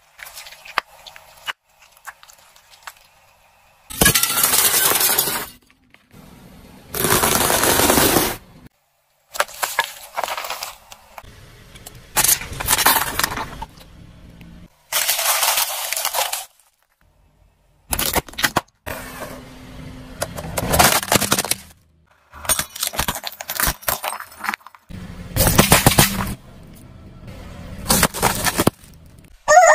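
A car tyre rolling over and crushing a run of objects, including gel-filled plastic bags, rubber toys and biscuit packets. It is heard as about nine separate crunching, cracking and bursting noises, each a second or two long, with abrupt cuts between them.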